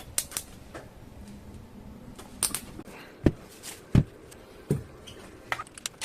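Scattered sharp clicks and knocks of hard objects being handled, with a few louder knocks about halfway through and a quick run of clicks near the end; the drill is not running.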